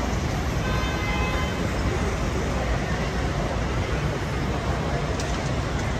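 Busy city street ambience: steady traffic noise with a low rumble, and passers-by talking in the background.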